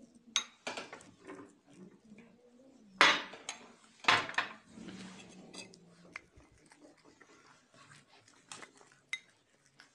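A spoon scraping and clinking against a bowl while stirring a thick flour-and-milk paste. The strokes come irregularly, the loudest about three and four seconds in, with a few lighter clicks later.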